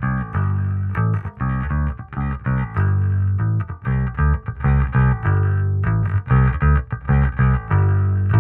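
Electric bass guitar playing a riff of short, plucked notes with brief gaps between them, run through The Keys optical compressor pedal.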